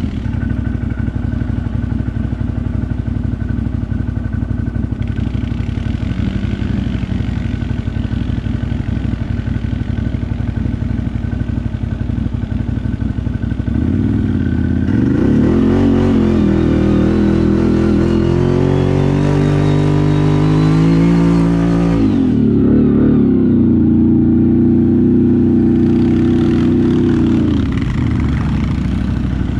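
ATV engine running steadily, then revving up with its pitch climbing for several seconds from about halfway. It holds high for a few seconds and drops back near the end.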